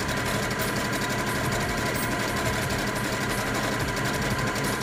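Brother CS6000i computerized sewing machine running steadily at speed, stitching a seam, with a fast, even stitch rhythm.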